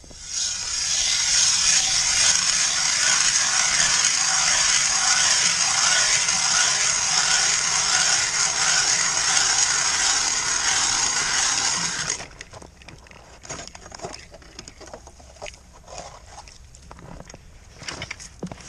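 Ice auger drilling a hole through thick lake ice, a steady grinding scrape lasting about twelve seconds that cuts off abruptly as the auger breaks through. Scattered scrapes and clicks of ice follow.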